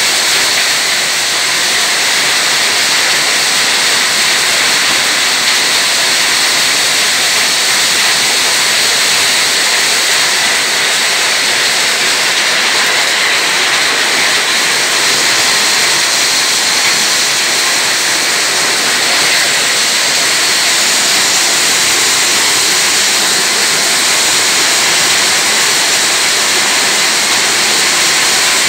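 Motor-driven corn sheller (krunjač) running under load as ears of corn are fed into its hopper, stripping the kernels from the cobs: a loud, steady, even rushing noise with no breaks.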